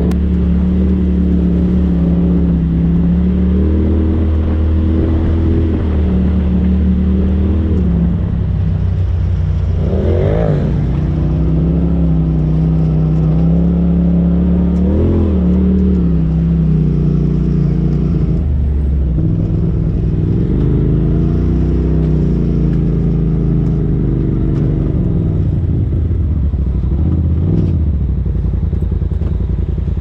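Polaris RZR Turbo side-by-side engine running under way on a dirt trail, its pitch rising and falling with the throttle. It revs up sharply about ten seconds in and again around fifteen seconds.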